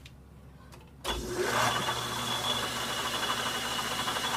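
Logan metal lathe switched on about a second in, its motor and spindle starting with a low thump and then running steadily with a high whine.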